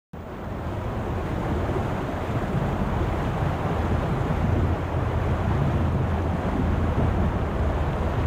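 Steady rush of the sea with wind buffeting the microphone and a heavy low rumble. It cuts in suddenly from silence and swells a little over the first couple of seconds.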